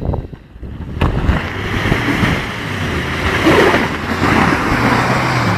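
Chevrolet Tahoe's V8 engine running hard as its wheels spin in mud and slush, with a loud rush of spraying mud and slush that sets in about a second in.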